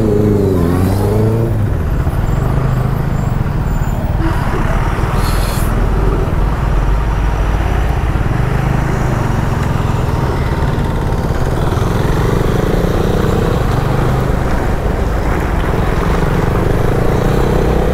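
Yamaha R15 V3's single-cylinder engine running steadily under way, with wind rushing over a helmet-mounted microphone.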